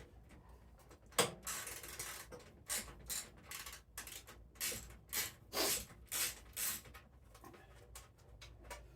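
Irregular clicks, clinks and short scrapes from hand tools and small parts being handled, about a dozen in all, with a longer scrape about one and a half seconds in.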